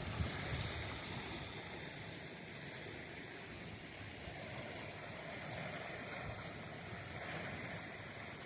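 Steady rushing outdoor noise, such as running water or wind, with a few low thumps right at the start.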